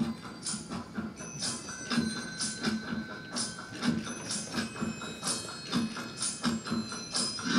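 Recorded music starting suddenly from a portable boombox: a steady beat of about two strikes a second with jingling high percussion and ringing bell-like tones.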